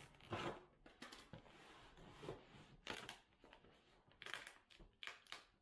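Scissors cutting through the packing tape on a cardboard shipping box: a quiet run of short, irregular scraping strokes.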